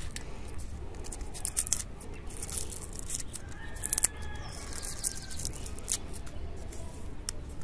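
Dry leaves and papery roots crackling and snapping as fingers pick them off the stem of an Echeveria elegans offset, in short irregular crisp clicks.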